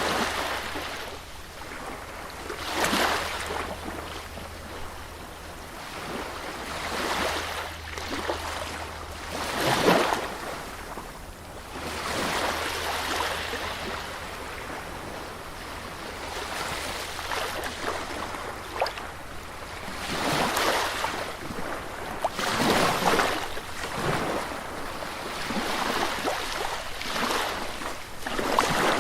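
Sea waves breaking and washing up on a beach, surging in every few seconds and ebbing between, over a faint low steady hum.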